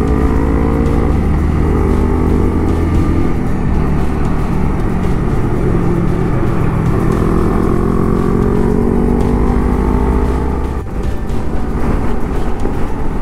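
Honda Rebel 250's single-cylinder engine running under way, heard through rushing wind. Its pitch falls at first, then climbs slowly as the bike picks up speed, with a sudden change near the end.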